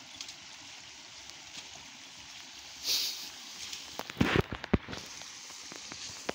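A hand net scooped through shallow muddy ditch water: a short burst of splashing about three seconds in, then a quick cluster of sharp splashes and knocks a second later, over a steady watery hiss.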